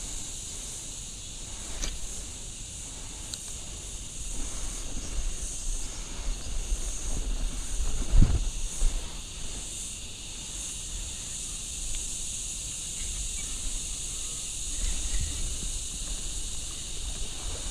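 Steady high-pitched insect chorus, with one thump about eight seconds in.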